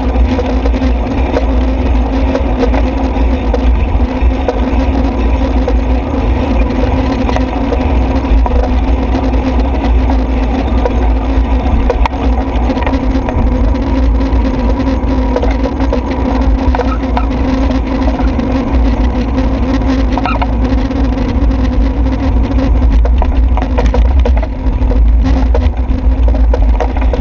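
Wind and road vibration on a handlebar-mounted camera's microphone while riding a bicycle: a loud, steady rumble with constant small rattling clicks from the mount. Road traffic passes alongside.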